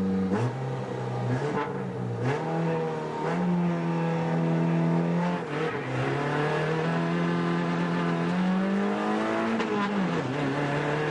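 Suzuki Swift 1.3's four-cylinder engine working hard at speed on a rally stage, heard from inside the cabin, its note climbing and then falling back several times. A few short knocks sound over the engine.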